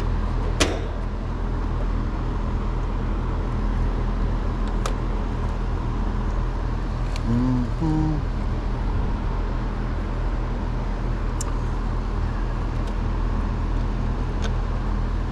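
Steady low hum of a running air-conditioning outdoor unit, with one sharp click about half a second in and a few faint ticks.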